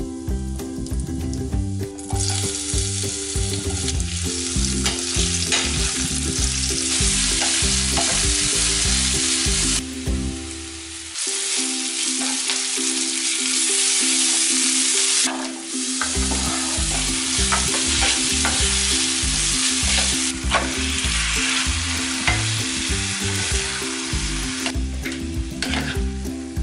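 Food sizzling in hot oil in a nonstick wok and being stirred with a spatula: first cumin seeds, then sliced onions and chicken pieces. The loud frying hiss starts about two seconds in and breaks off briefly near the middle. Background music plays underneath.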